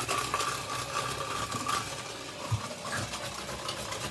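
Electric hand mixer running on low, beating softened butter and sugar in a mixing bowl, with its beaters scraping against the bowl. It stops about two seconds in, followed by a few light knocks and clinks.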